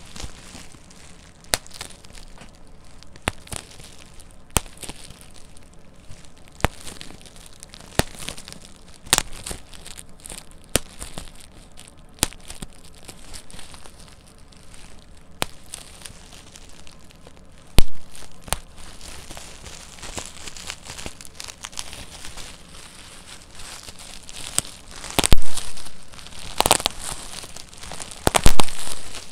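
Bubble wrap popped by hand between the fingers: single sharp pops every second or so, with the plastic sheet crinkling between them. A louder pop comes about two-thirds of the way in, and near the end several bubbles burst in quick, louder clusters.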